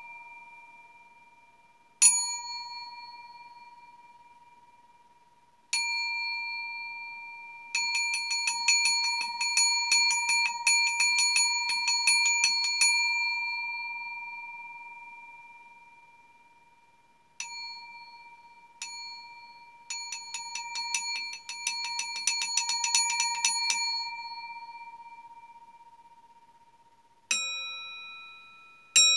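Stainless steel bowl used as a singing bowl: struck and left to ring, a clear bell-like tone dying away over several seconds. Twice it is tapped rapidly for about five seconds, making the ring swell, and near the end strikes bring in a different pitch.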